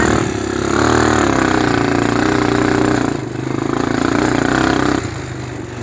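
Engine of an open off-road vehicle running under way, with a steady pitch that briefly drops about three seconds in and eases off near the end, over wind noise.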